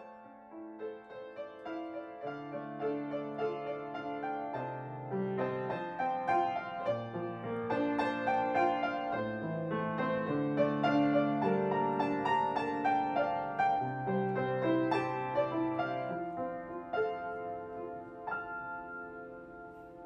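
Background piano music: gentle melody of held notes over long low bass notes, growing louder toward the middle and fading near the end.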